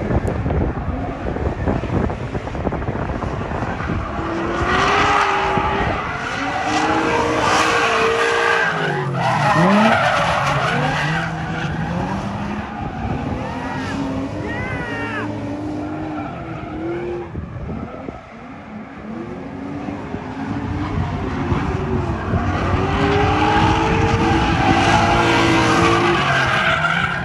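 Two drift cars, a red Ford Mustang and a blue Nissan 350Z, sliding in tandem: engines revving up and down with tyres screeching. The sound swells twice as the pair sweep close by, with a lull in between.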